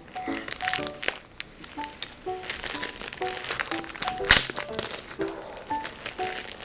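Gift packaging crinkling and crackling as it is handled and opened, with one sharp, loud crackle about four seconds in, over background music made of short, light melody notes.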